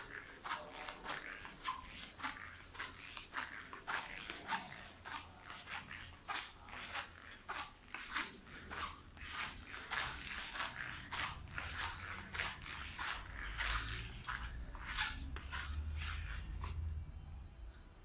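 Footsteps of a person walking on a hard floor at a steady pace, about two steps a second, stopping about a second before the end.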